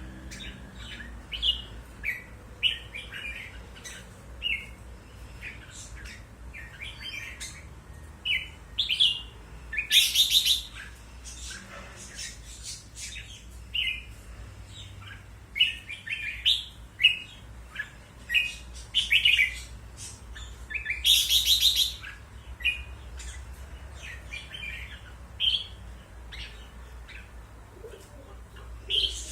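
Red-whiskered bulbul (jambul) singing short, chirpy phrases again and again, with two louder, longer rapid phrases about 10 and 21 seconds in. A steady low hum runs underneath.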